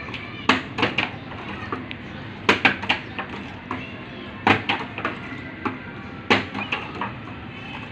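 Plastic bottles being flipped and landing on a concrete floor, a string of sharp, irregular knocks and clacks as two bottles hit down again and again.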